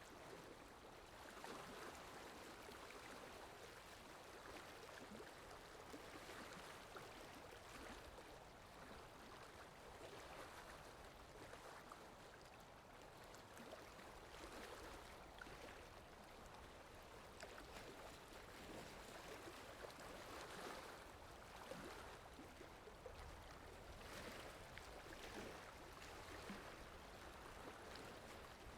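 Faint water lapping with wind: a continuous soft wash that swells and eases every couple of seconds, dotted with small splashes.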